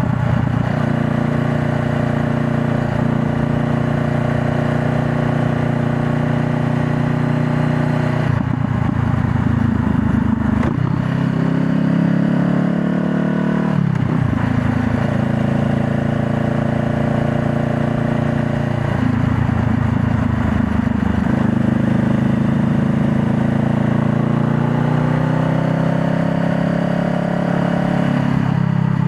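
2020 Honda Rebel 500's 471 cc parallel-twin engine running under way, the pitch steady for stretches and then dropping and climbing again several times as the throttle and gears change, with wind and road noise.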